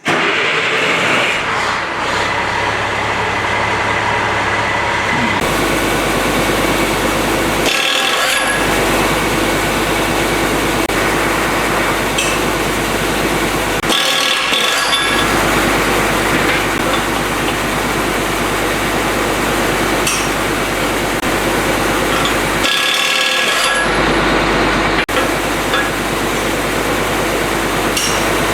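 Half-inch right-angle pneumatic impact wrench hammering on a nut torqued to 200 foot-pounds, trying to break it loose. It runs loud and continuous, stopping briefly three times and starting again.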